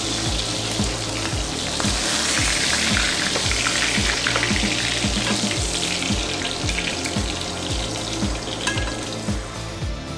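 Meat sizzling as it fries in a hand-forged sheet-iron skillet, the sizzle strongest in the middle and easing toward the end.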